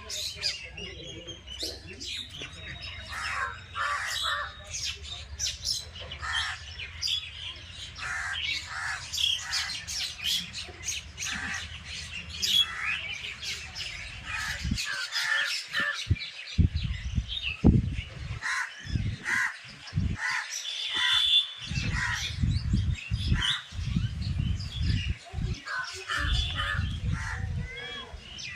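Many birds chirping and calling in short, repeated notes. A low rumble runs under them for the first half and gives way to separate low bursts in the second half.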